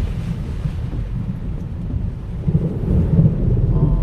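Typhoon wind buffeting the microphone with heavy rain, a low rumbling noise that grows louder about two and a half seconds in.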